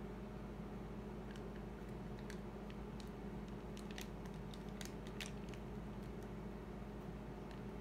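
Steady low hum of room tone with a scatter of faint, sharp clicks and crackles, thickest around the middle seconds.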